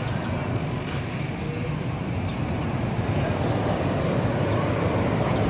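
Steady low rumble of outdoor amusement-park background noise, growing slightly louder near the end.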